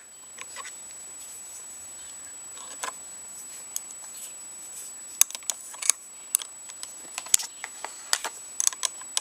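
Irregular sharp metallic clicks and taps of a wrench working the pivot bolt and nut of a motorcycle's handlebar lever, coming more often in the second half, over a faint steady high whine.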